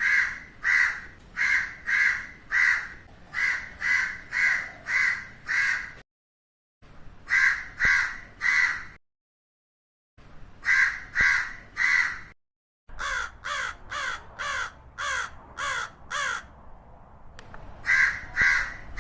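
Crows cawing in runs of repeated caws, about two a second, broken three times by short gaps of dead silence where recordings are joined. A softer, quicker run of caws that slide down in pitch comes in the middle.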